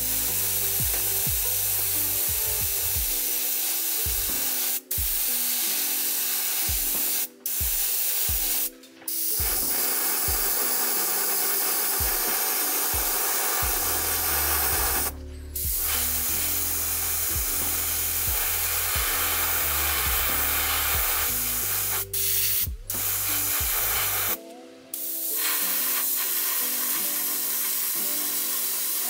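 Airbrush spraying paint: a steady hiss of air that stops abruptly several times for a moment.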